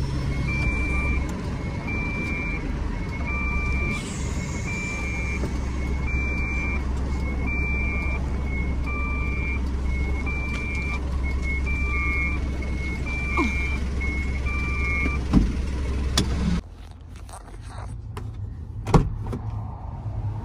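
A car's reverse-gear warning beeper sounding about once a second inside the cabin, over the engine idling, while the car is parked. The beeping stops about two-thirds of the way through, and a second later the engine is switched off and its rumble cuts out suddenly, leaving a quieter cabin with a few clicks and a knock.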